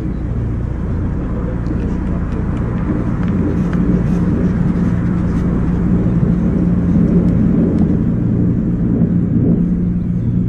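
Steady low droning hum in the open air, several deep tones held together and swelling slightly midway, of the kind posted as a mysterious 'strange sound in the sky'.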